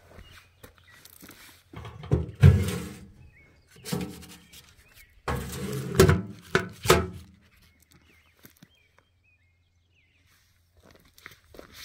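Roadside mailbox being opened and mail pulled out: several loud thunks and scrapes of the box's door with some ringing, in two bursts a few seconds apart, then quiet.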